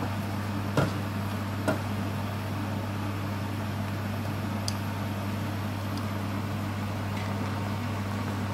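Steady low mechanical hum, with a wooden spoon knocking twice against a metal frying pan of pasta during stirring, about one and two seconds in, and a faint tick near the middle.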